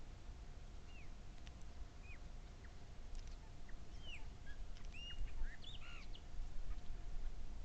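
Birds calling with short, high, down-curving chirps, about a dozen scattered notes that come thicker in the middle, over a low background rumble.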